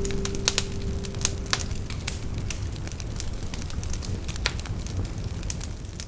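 Wood campfire crackling: irregular sharp pops and snaps over a steady low rush of burning.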